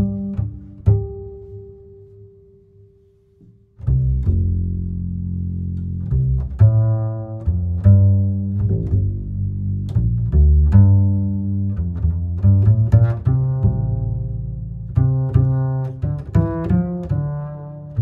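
Background instrumental music of low, pitched notes. The music dies away almost to nothing over the first few seconds, then comes back about four seconds in with a busy run of short notes.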